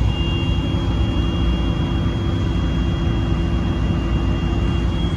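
John Deere 350D LC excavator's diesel engine running steadily, heard from inside the operator cab along with the air-conditioning fan, with a faint steady high whine over the engine's low rumble.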